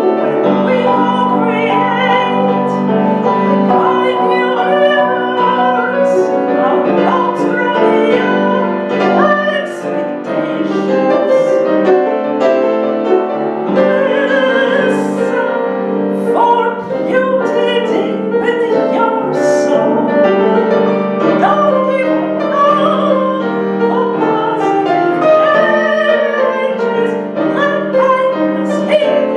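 Piano accompaniment under a voice singing in an operatic style, the held notes wavering with vibrato.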